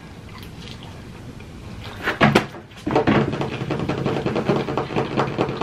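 Close-up chewing and mouth sounds of pizza being eaten, with a sharp, louder smacking sound about two seconds in. The chewing noise grows denser and louder after about three seconds.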